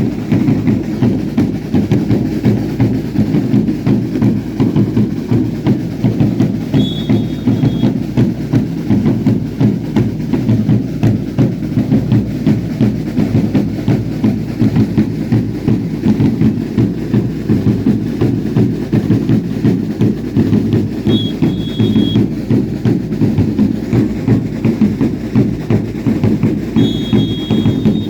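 Drums of a baile indio dance troupe beating a steady rhythm of about three beats a second. A short high whistle cuts in three times: about seven seconds in, at about twenty-one seconds, and near the end.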